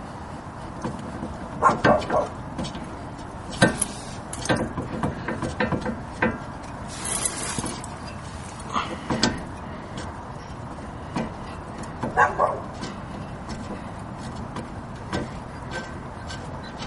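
Scattered metallic clinks and knocks of a socket wrench and hand tools working on the brake caliper bolts. Two louder short sounds come about two seconds and about twelve seconds in.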